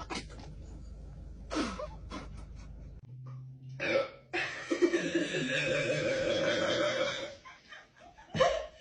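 A person burping and hiccupping after gulping down carbonated Sprite: several short hiccup-like gulps and burps, then a longer drawn-out sound lasting about three seconds past the middle.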